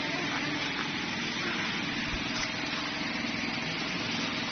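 Steady machinery noise of a running snack-food production line: an even whir with a faint constant hum underneath.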